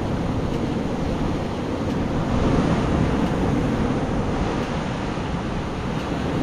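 Steady rush of sea surf washing against a rocky shore, mixed with wind on the microphone, swelling a little about two and a half seconds in.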